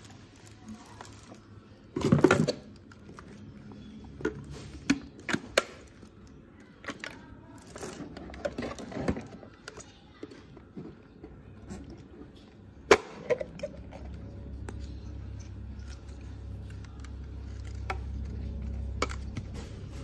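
Plastic parts of a new Bolde handheld vacuum cleaner being handled over a cardboard box: scattered clicks and knocks of plastic on plastic and cardboard, the loudest a short rattle about two seconds in and a sharp click in the middle. A low hum comes up in the second half.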